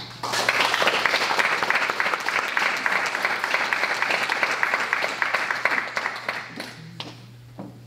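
Audience applauding, starting right after a spoken oath and dying away about six and a half seconds in.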